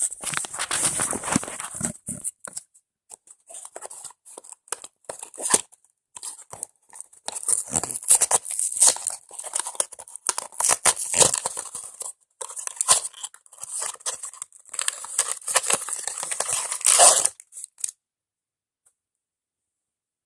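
A toy's cardboard box being torn open by hand, with rustling and crinkling of the packaging inside, in irregular bursts. It breaks off suddenly into silence near the end.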